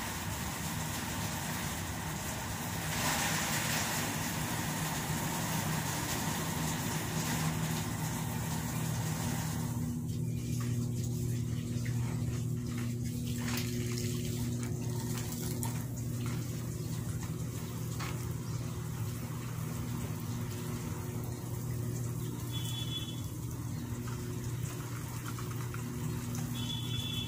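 Engine running steadily with a low hum. A broad hiss over it for about the first ten seconds then stops, leaving the hum.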